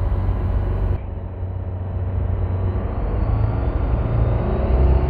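Rotax 912 four-cylinder engine of a KFA Bushbaby light aircraft being throttled up for the takeoff roll. It runs steadily, then grows louder and slightly higher in pitch from about a second in.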